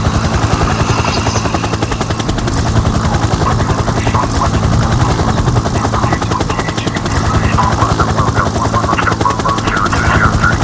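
Helicopter rotor chopping steadily in a rapid even beat over a low hum, with short faint tones coming in over it in the second half.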